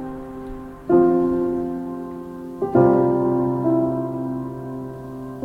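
Slow background piano music: two sustained chords struck a couple of seconds apart, each left to ring and fade.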